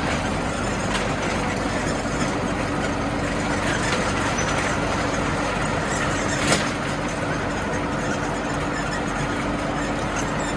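Steady hum and rumble of factory machinery running, with one sharp clack about six and a half seconds in.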